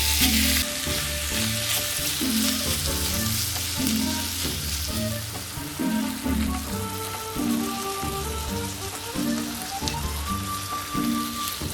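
Food sizzling as it fries in a hot pan, loudest in the first second, with background music playing over it.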